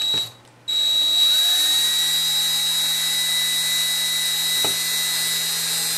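Power drill driving a toggle bolt's machine screw through a wood block into drywall: a short trigger blip, then under a second in a steady whine as the screw is run in continuously.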